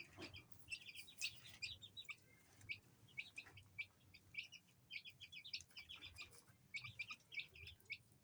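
Aseel chicks peeping: many short, high chirps in quick, irregular runs.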